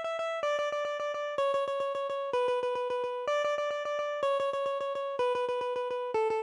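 Ringtone melody in a single plucked electronic tone, each note rapidly re-struck several times a second. The notes step down in pitch about once a second in two descending runs of four notes.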